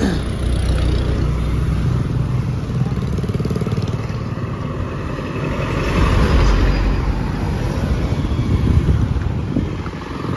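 Road traffic passing on a highway, a steady low rumble that swells about six seconds in.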